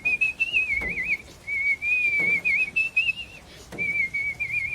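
A man whistling a song melody: a single high whistled line in phrases with quick warbling trills, broken by short pauses.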